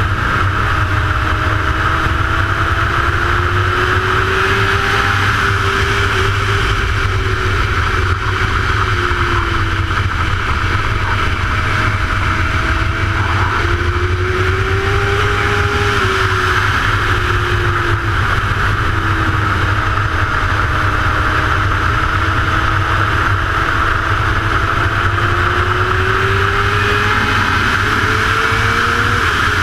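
Middleweight superbike race motorcycle's engine heard from onboard at racing speed under a constant rush of wind. The engine note climbs and drops several times as the rider goes on and off the throttle through corners and straights.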